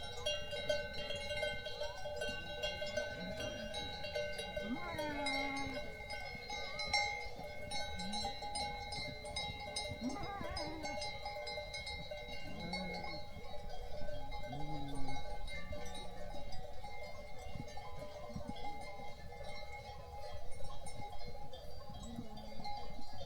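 Sheep and goats bleating now and then, short low calls about eight times, over the steady ringing of livestock bells.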